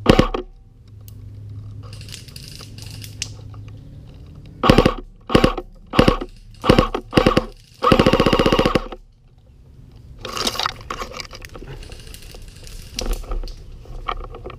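Airsoft gun firing: a handful of single shots about half a second apart, then a short rapid full-auto burst. Fainter rustling and movement lie between them.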